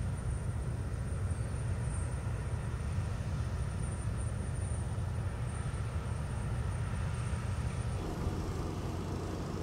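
Steady low outdoor rumble. About eight seconds in it changes to a steadier low hum.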